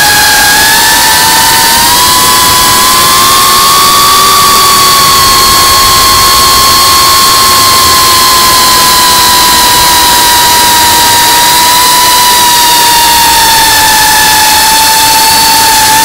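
The motors and propellers of an FPV quadcopter, a GEPRC Cinelog35 3.5-inch cinewhoop, whine steadily in flight, heard from its onboard camera. The pitch rises a little a few seconds in, then slowly sinks back, over a constant hiss of wind rushing past the microphone.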